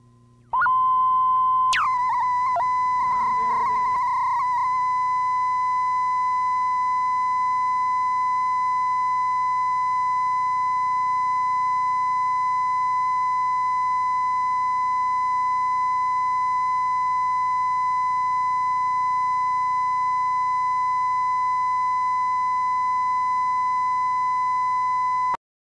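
Steady 1 kHz line-up test tone accompanying colour bars on a videotape. It comes in about half a second in, wavers with a brief falling squeal over the first few seconds, then holds one unchanging pitch and cuts off abruptly near the end.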